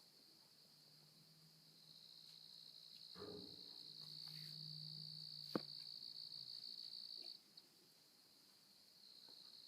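Insects trilling steadily at a high pitch, cutting out briefly near the end and then starting again. A sharp click about five and a half seconds in.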